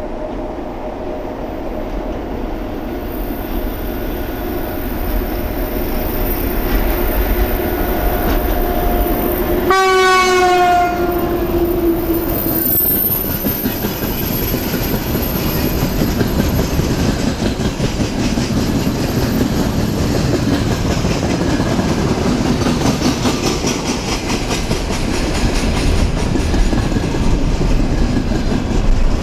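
An electric-locomotive-hauled train passing close by. It sounds one horn blast about ten seconds in, lasting a second or two and dropping slightly in pitch at the end. After it comes the steady rumble and clatter of the wagons' wheels over the rails.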